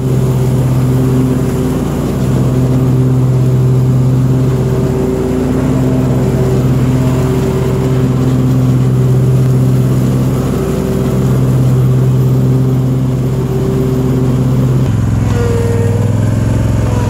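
Lawn mower engine running steadily under load while mowing, a loud constant drone; its note drops slightly about fifteen seconds in.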